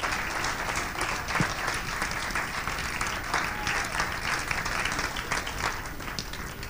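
A roomful of people applauding, steady clapping that eases off slightly near the end.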